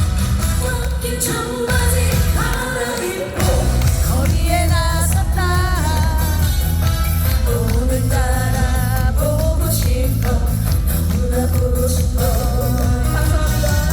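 Live trot performance: a woman singing with vibrato over a loud backing track with a heavy, steady bass beat, which drops out briefly a few seconds in.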